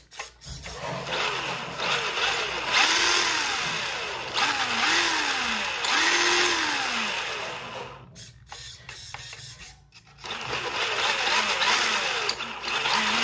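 Tamiya TA01 RC car's electric motor and gear drivetrain whining as the throttle is worked, the pitch rising and falling in repeated short bursts. It goes quiet for a moment about eight seconds in, then revs again.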